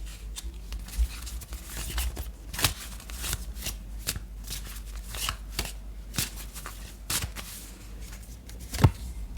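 A deck of tarot cards being shuffled and handled: a busy, irregular run of soft card slaps and clicks, with one sharper snap near the end.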